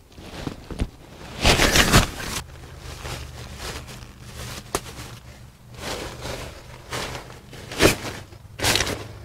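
Tent nylon rustling and crinkling as the inner tent's corners are handled and hooked into the flysheet, in several bursts, the loudest about two seconds in, with a few sharp clicks between.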